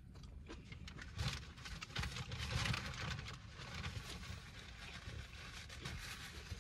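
Close-miked eating and handling noises: crackly rustling and small clicks while a Whopper is eaten and handled, growing louder about two to three seconds in.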